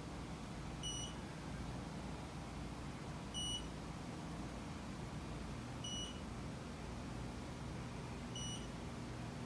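Mitutoyo Bright 916 CMM giving short electronic beeps, four in all, about every two and a half seconds, each the trigger signal as its Renishaw TP2 touch-trigger probe touches the reference sphere during probe calibration. A steady low hum runs underneath.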